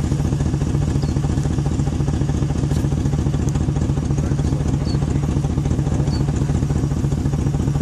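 Steady low rumble of an idling vehicle engine, with a few faint, short bird chirps above it.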